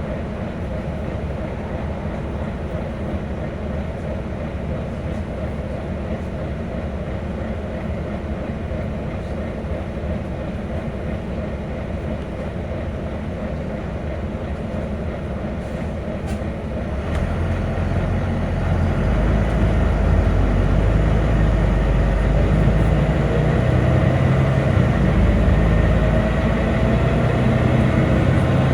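Volvo B9TL double-decker bus running with a steady rumble. About two-thirds of the way through, the diesel's low note grows louder and a whine climbs in pitch as the bus accelerates.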